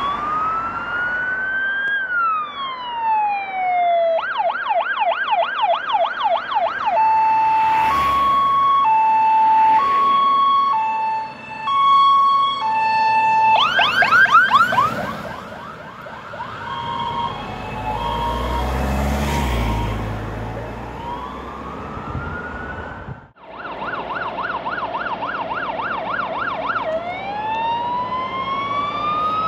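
Fire engine sirens on an emergency run, cycling through their modes: a slow rising and falling wail, a rapid yelp, and a steady two-tone hi-lo call, then the yelp again. A low rumble comes up near the middle as a truck goes by. After a brief cut the siren yelps and wails once more.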